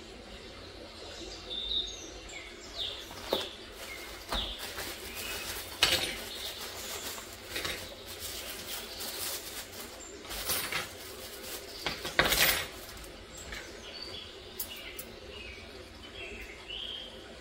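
Cups and spoons clinking and knocking as they are handled, a series of separate sharp clinks at uneven intervals, with a louder cluster about twelve seconds in. Birds chirp faintly in the background.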